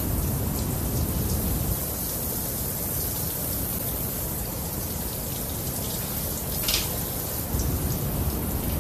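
A shower spray running steadily, water hissing down onto a wet monkey and the shower floor. One short sharp tap about two-thirds of the way through.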